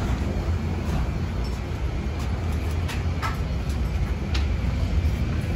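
Steady low rumble of jet bridge ambience: ventilation and aircraft ground machinery, with a few faint clicks about three and four seconds in.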